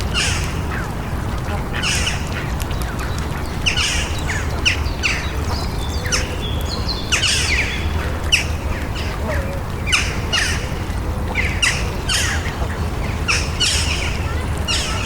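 City park ambience: birds calling in many short chirps and squawks throughout, over a steady low rumble.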